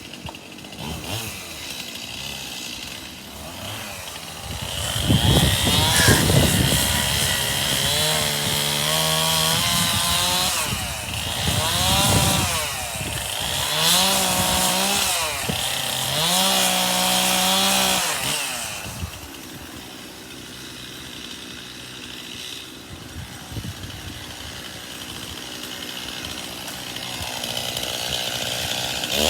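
Chainsaw revving up and down in several bursts while cutting ash wood, then idling lower for several seconds before revving up again at the end.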